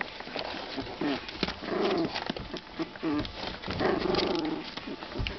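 Puppies play-fighting in a box: small growls, twice drawn out into longer growls about two and four seconds in, over scratching and knocking of paws against the box.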